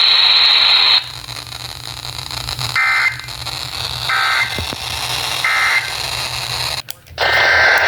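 Emergency Alert System SAME data bursts over a weather radio's hiss: three short, identical warbling two-tone digital chirps about a second apart, the end-of-message code after a severe thunderstorm warning. Near the end a louder, longer burst of the same kind begins.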